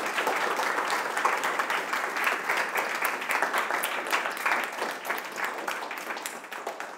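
Audience applauding, a dense run of many hands clapping that tapers off near the end.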